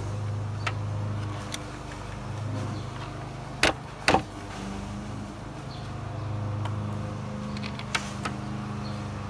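Hands handling a plastic radiator fan shroud, with sharp clicks and knocks, the two loudest close together about three and a half and four seconds in, and a few lighter taps. Under them runs a steady low mechanical hum.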